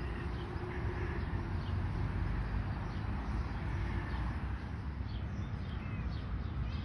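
Wind noise buffeting the microphone, with birds chirping faintly now and then in the background, more often in the second half.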